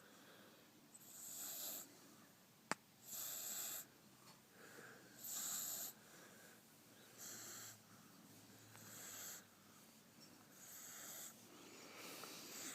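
French bulldog puppy snoring faintly in its sleep, one breath about every two seconds, with a single sharp click about three seconds in.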